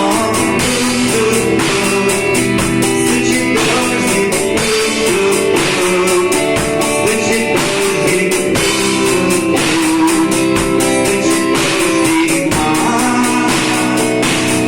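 Instrumental song music: a guitar playing over a steady drum beat, with no singing.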